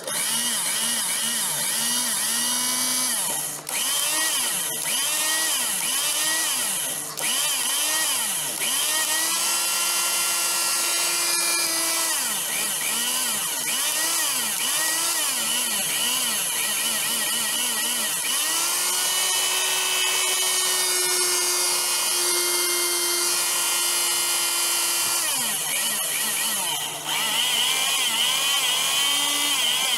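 Electric motor of a mixer grinder running continuously, its pitch wavering up and down again and again.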